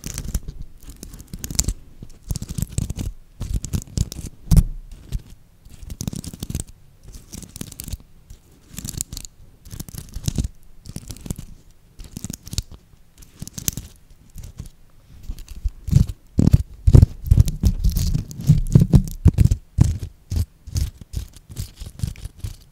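Fingers scratching and flicking the sequins of a sequin-covered ball held against the microphone: irregular crackly clicks and scratches. It gets louder and heavier, with low thumps, in the last third.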